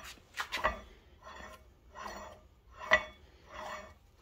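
Steel piston retaining nut being hand-threaded onto a hydraulic cylinder rod. Each twist gives a short metal-on-metal scrape with a faint ring, repeating about every 0.7 s, with one sharper clink about three seconds in.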